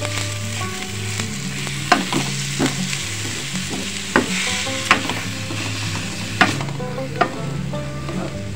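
Minced beef and diced vegetables sizzling in a hot wok while being stir-fried until the meat changes colour. A wooden spatula scrapes and knocks against the pan, giving sharp irregular clicks every half second to a second or so.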